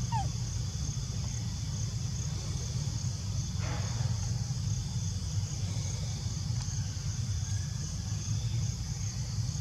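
Steady high-pitched insect drone, typical of cicadas, over a constant low rumble. A short falling squeak right at the start, from a baby macaque.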